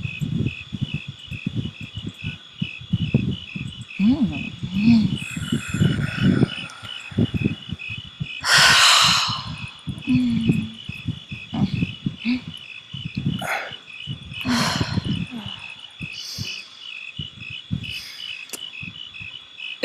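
Crickets chirping steadily in even, rapid pulses, with irregular low rumbles and a loud rush of noise about eight seconds in.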